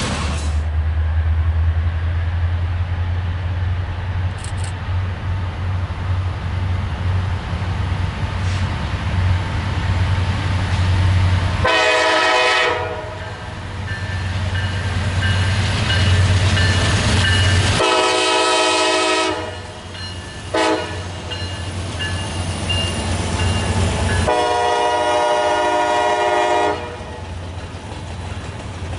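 Diesel locomotive air horn blowing the grade-crossing pattern: two long blasts, one short and a final, longest blast, each a chord of several tones. Under the horn runs the steady low rumble of the locomotive and train.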